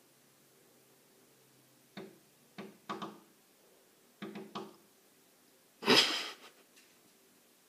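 A series of sharp knocks or taps: one, then two quick pairs, followed about 6 seconds in by one louder, longer crash that trails off.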